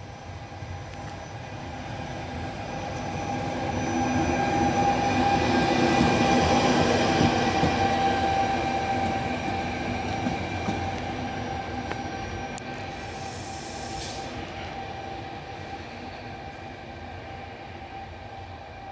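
Electric locomotive running light through a station, growing louder as it passes close about six seconds in, then fading as it moves away. A steady high whine rides over the rumble of its wheels on the rails.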